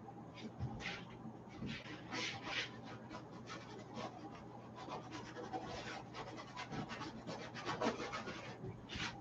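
Bristle paintbrush scrubbing and dabbing oil paint onto canvas: a quick run of short, scratchy strokes, densest through the middle.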